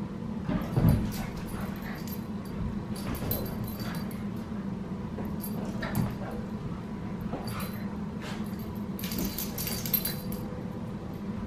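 Australian cattle dogs, adults and a puppy, play-fighting, with short dog vocal noises; the loudest comes about a second in. A steady low hum runs underneath.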